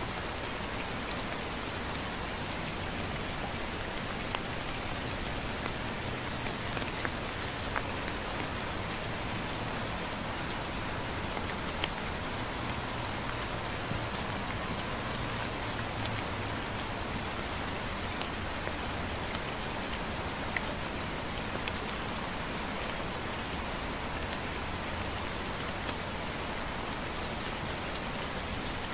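Light, steady rain falling, with scattered single drops ticking close by. A faint low hum runs underneath.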